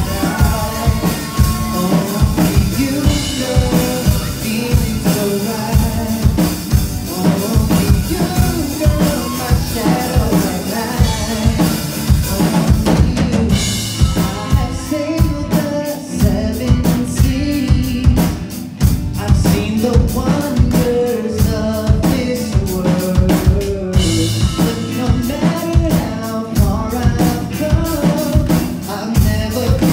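Live band playing a pop song on drum kit and acoustic and electric guitars, with a man singing. The drum groove shifts into a new section about fourteen seconds in.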